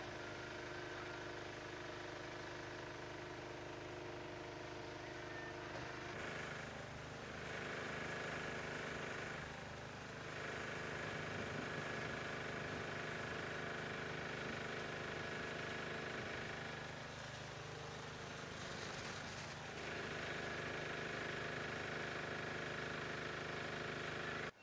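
Fire engine's diesel engine idling steadily. A broad hiss swells and fades a few times over it.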